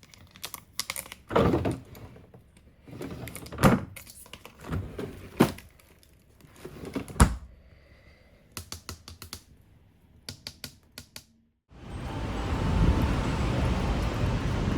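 A series of light clicks, taps and a few heavier knocks, like objects being handled and set down. About twelve seconds in they stop and a loud, steady rushing noise takes over.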